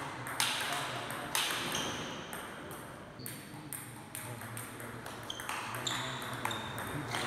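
Table tennis ball clicking repeatedly off the rackets and bouncing on the table during a rally, each hit ringing briefly in a large hall.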